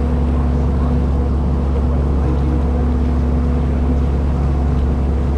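Engine of a water bus running steadily under way, an even, deep drone with a steady hum above it.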